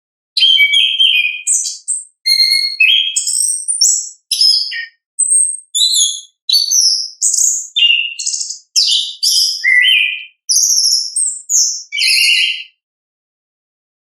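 Orange-headed thrush singing its full song: a long run of varied phrases, quick whistles and scratchy notes strung together with short breaks, stopping shortly before the end.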